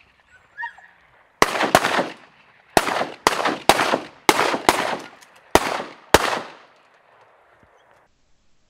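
A volley of about nine shotgun shots from several duck hunters, fired in quick succession over about five seconds, some nearly on top of each other, each fading out in a short echo.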